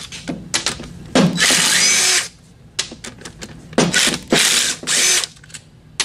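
Cordless drill spinning a socket to back out 10 mm transmission-case bolts. There is one run of about a second, starting about a second in, with a rising whine as the motor speeds up. Three quick bursts follow around four to five seconds, with small clicks of the socket and bolts in between.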